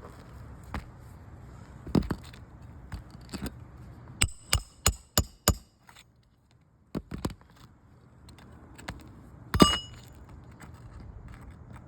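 Hammer blows driving roofing nails through shingles: scattered single strikes, a quick run of five about four seconds in, and one loudest blow near the end.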